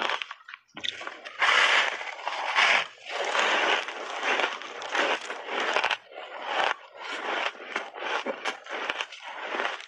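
Close-miked crunching and chewing of ice coated in milk powder and matcha powder, with loud crunchy bites about one to three seconds in, then repeated chewing crunches broken by short pauses.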